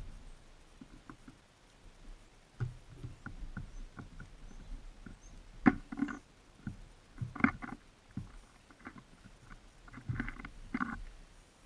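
Small wild birds feeding at a seed feeder right against the microphone: irregular pecking taps, scrabbling and soft thumps of feet and wings on the feeder, the sharpest knock a little before halfway.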